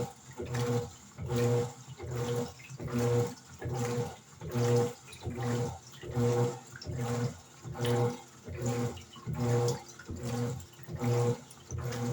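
Electrolux LED14 14 kg washing machine agitating a wash load: the motor whirs in short strokes a little more than once a second, with the wash water sloshing.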